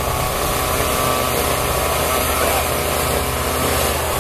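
A small engine running steadily at an even pitch under a loud, constant machinery din.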